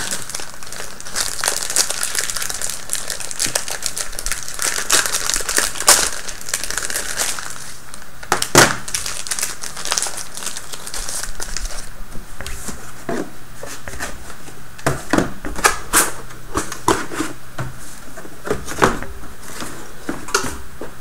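Clear plastic packaging bag crinkling and crackling as it is handled and opened, with sharp crackles scattered throughout and the loudest about eight seconds in and again near sixteen seconds.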